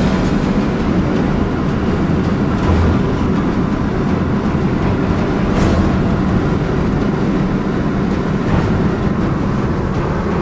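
Steady road and engine noise of a moving vehicle, heard from inside, with a couple of brief knocks partway through.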